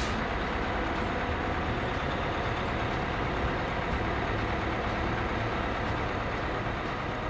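Steady street traffic noise with the low rumble of an idling vehicle engine.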